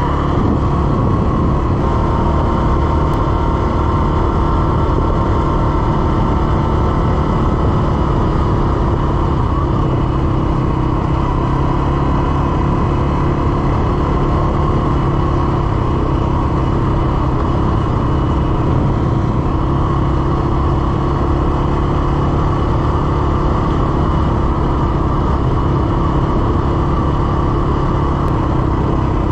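CFMoto CForce 600 ATV's single-cylinder engine running steadily while riding at an even speed.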